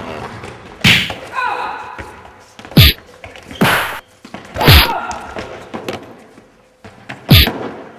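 Punch and kick hits for a staged fist fight, five sharp blows spaced a second or two apart, several with a deep falling boom after the hit.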